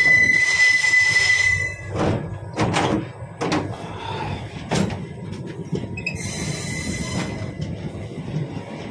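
A passenger train rolling slowly through a station yard. A high, steady wheel squeal sounds for about two seconds at the start and returns more faintly about six seconds in. Several sharp clanks, wheels crossing points and rail joints, fall between them over a low rumble.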